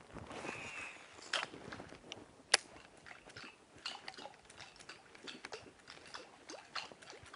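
Surface fishing lure being twitched across the water: faint, irregular small splashes and clicks, the sharpest about two and a half seconds in.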